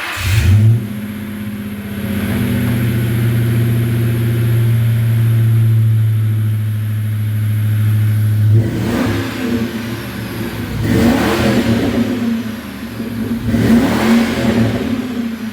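A 1996 Mustang GT's 4.6-litre two-valve V8, just started, flares up and settles into a steady idle through a stock H-pipe and chambered mufflers. In the second half it is revved three times, each rev rising and falling.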